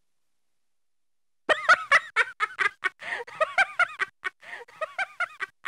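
Cartoon characters giggling in quick, high-pitched bursts of laughter. The laughter starts about a second and a half in, after a silence.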